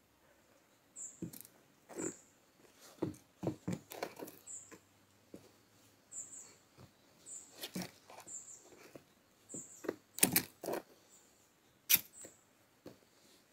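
Short, high bird chirps repeating about once a second, with scattered sharp knocks and scuffs of sneakers shifting on wooden bridge planks. The loudest knocks come a little past two-thirds of the way through and again near the end.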